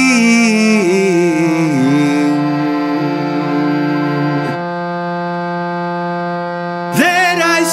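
Electric chord organ holding a sustained chord under a slow song. A held sung note with vibrato trails off about two seconds in, the chord changes tone about four and a half seconds in, and the voice comes back in near the end.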